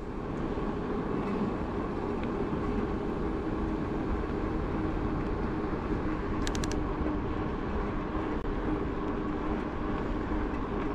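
Riding noise from an e-bike on asphalt: wind on the camera microphone and tyres rolling, with a steady low hum under it. A few quick clicks come about six and a half seconds in.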